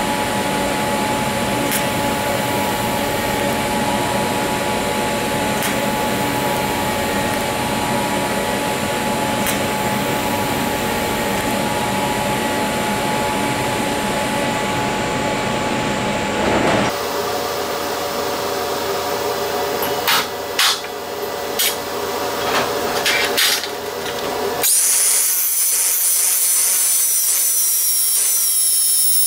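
Steady shop machine hum, which changes character after about seventeen seconds and has a few sharp clicks. Then, near the end, an angle grinder with a finishing disc comes in suddenly against the stainless steel weldment with a high, wavering whine.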